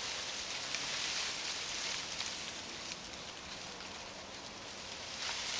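Steady outdoor hiss with a few faint clicks, easing a little in the second half.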